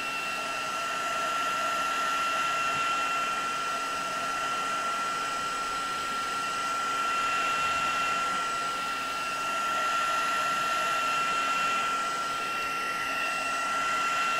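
Craft heat gun blowing steadily with a constant high whine over the rush of air. It is drying damp cardstock.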